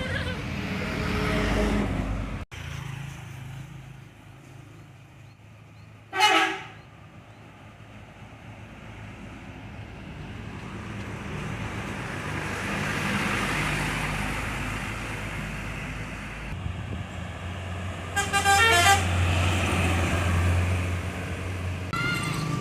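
Indonesian buses passing with engine and road noise, sounding 'telolet' multi-tone musical horns: a short horn blast about six seconds in, then a tune of several stepped horn notes near the end. Between the horns the traffic noise swells as a vehicle approaches.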